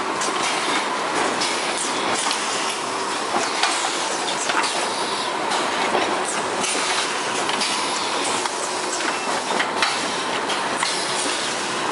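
Welding-wire spool packaging line running: the chain conveyor and machinery clatter steadily, with many irregular clicks and knocks as plastic spools move along, and a faint steady whine underneath.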